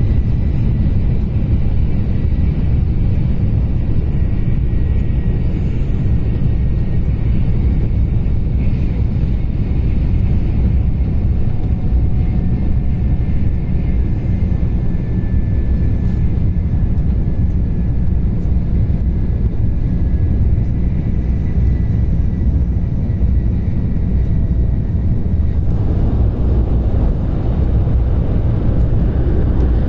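Cabin noise of a Shinkansen bullet train running at speed: a steady, loud low rumble with a faint high whine that slowly falls in pitch. The rumble takes on more hiss about four seconds before the end.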